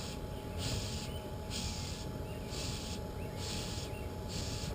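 A person blowing hard into the blast furnace's air feed, acting as human-powered bellows: a series of hissing breaths, about one a second, over a low rumble.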